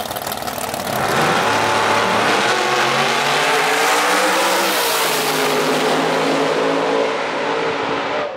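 Two drag-race cars, a Corvette and a Chevy Nova, launching off the line at full throttle. About a second in the engines jump loud. Their note climbs, dips and climbs again as they run down the track, easing off a little near the end as they pull away.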